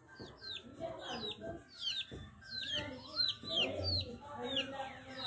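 Chickens calling: a steady run of high, falling peeps, two or three a second, over lower clucking.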